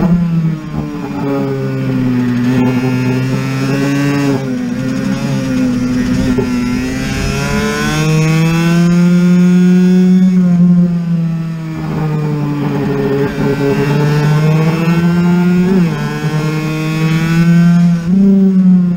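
Honda NSR50's small two-stroke single-cylinder engine racing on track. Its pitch climbs and falls over and over as the throttle is opened and closed through the corners, with a couple of sudden pitch jumps near the end.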